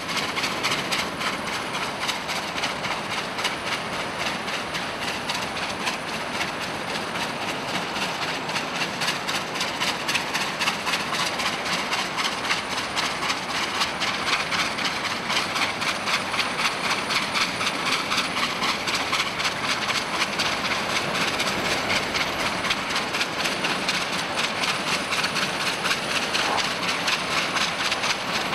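Victorian Railways R class 4-6-4 steam locomotive R761 running in reverse at speed, its exhaust beating in a fast, steady rhythm over a continuous hiss of steam.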